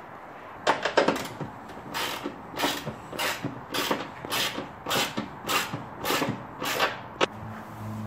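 Aftermarket locking hood latch on a Jeep Wrangler hood being worked by hand: a steady series of about a dozen short clicks and rattles, roughly two a second, ending in a sharper click.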